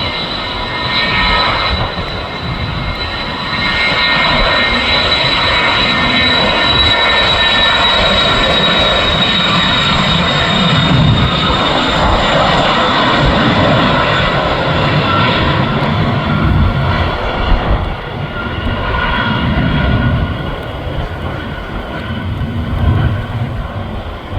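Jet aircraft engines running loud, with a high whine over a dense rush that sinks slightly in pitch. The sound swells a few seconds in and eases off about two-thirds of the way through as the aircraft passes.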